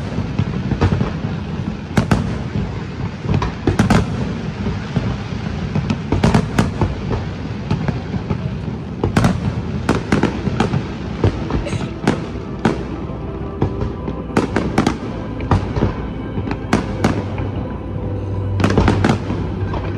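Large fireworks display: shells bursting in an irregular string of sharp bangs, often several a second, over a continuous rumble and crackle from the barrage.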